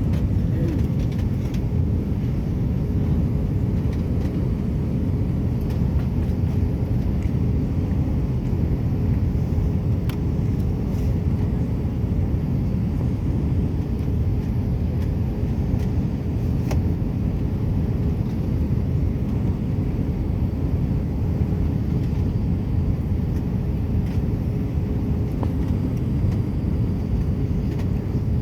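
Airliner cabin noise in flight: a steady low rumble of the jet engines and airflow, with a thin steady hum over it.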